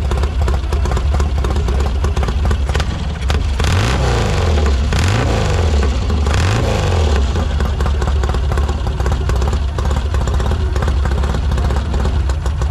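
Custom classic motorcycle's engine running at idle, revved up and down a few times with short throttle blips between about four and seven seconds in.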